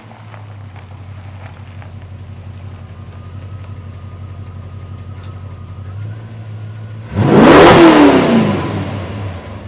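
A motor vehicle's engine runs steadily at a low hum; about seven seconds in, a vehicle passes close by, loud for a second or two, its pitch falling as it goes past.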